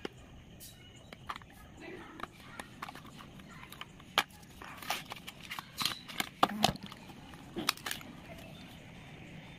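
A cardboard paint box and a clear plastic tube tray being handled and unpacked: scattered sharp clicks, taps and crinkles at an uneven pace, a few louder ones about four seconds in and between six and eight seconds.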